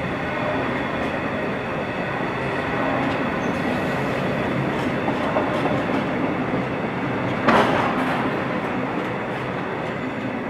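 Container freight train's wagons rolling past at speed, a steady rumble with wheel clicks and one brief loud clank about seven and a half seconds in. The sound eases a little as the last wagon clears near the end.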